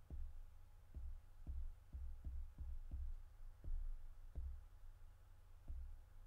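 Fingertips tapping the touchscreen of an Ag Leader Integra display while text is typed on its on-screen keyboard: about a dozen soft taps at uneven intervals, with a pause of about a second near the end, over a steady low hum.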